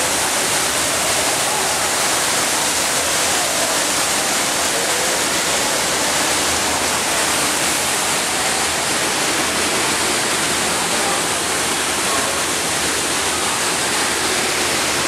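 Waterfall pouring into a pool: a steady, unbroken rush of falling and splashing water.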